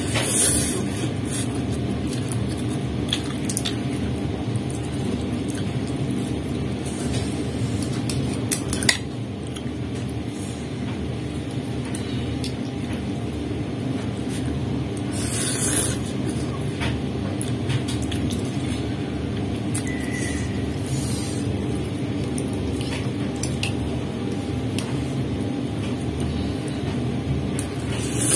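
Noodles being slurped from a bowl of bakso, with a few short clinks of a plastic spoon and utensil against the ceramic bowl, over a steady low background rumble.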